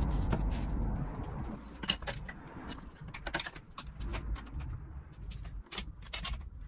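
An MDF circle-cutting jig being handled on a router table: a string of light clicks and knocks of wood on wood as it is set down, slid on its runner and its knob worked.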